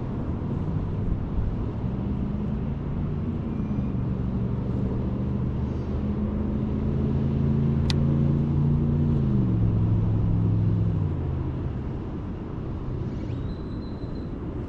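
Engine of a passing motor vehicle: a low hum that swells, drops in pitch as it goes by, then fades, over a steady outdoor rumble. A single sharp click sounds about eight seconds in.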